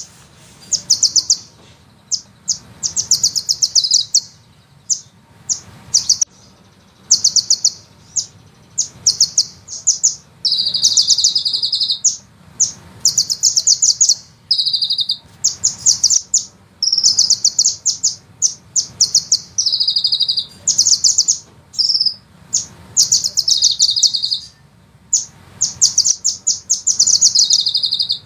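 Sunbird song: a long series of high-pitched, very fast rattling trills, each lasting about half a second to a second and a half, with short pauses between them. Some trills end in a brief held note.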